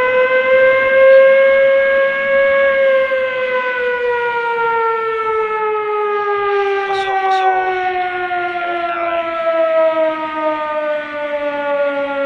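Warning siren wailing loudly: one long tone with overtones that climbs in pitch for the first two seconds or so, then slowly sinks for the rest.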